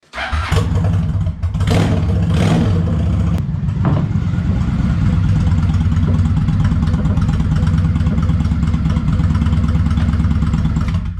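A car engine, blipped to higher revs a few times in the first four seconds, then running steadily at a loud, throbbing idle.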